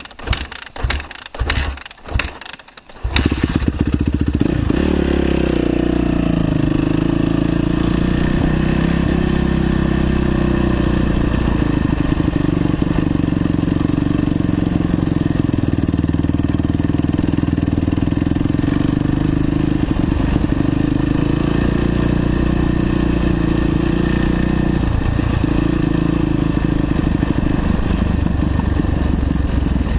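2009 Yamaha YZ450F's 450 cc single-cylinder four-stroke engine being kicked over in a few sharp bursts, then catching about three seconds in and running steadily as the dirt bike rides off.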